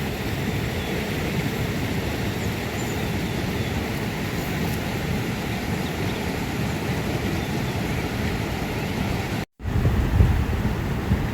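Steady rushing noise outdoors, dominated by a low wind rumble on the microphone, broken by a brief dropout to silence near the end.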